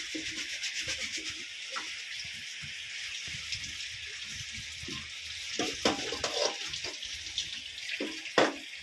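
Tap water running steadily into a sink while dishes are washed, with metal pots and plates clattering against each other a few times in the second half and one sharper knock near the end.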